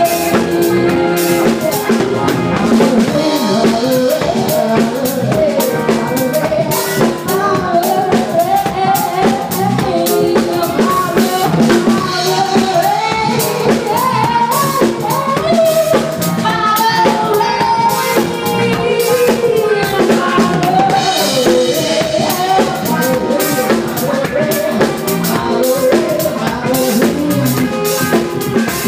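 Drum kit played live with a band: bass drum, snare, rimshots and cymbals hit continuously in a steady groove, under a wandering melody line.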